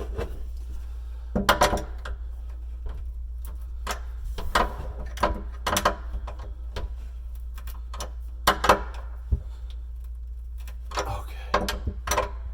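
Irregular light metallic clicks and knocks from working a miter draw bolt under a countertop with hand tools, over a steady low hum.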